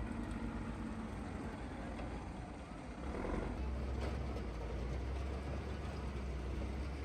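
Bulldozer's diesel engine running, a steady low rumble that grows heavier about halfway through.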